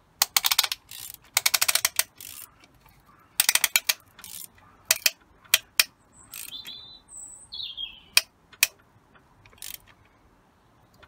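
Small hand ratchet clicking in quick runs as it tightens a piston ring compressor band around a piston in the BMW M57 diesel block, squeezing the rings for installation. There are three fast runs of clicks in the first four seconds, then scattered single clicks.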